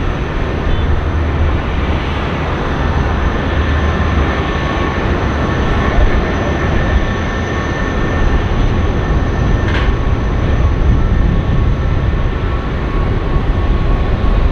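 Jet engines of a UPS Airbus A300 freighter taxiing: a steady, loud rumble with a continuous high turbine whine.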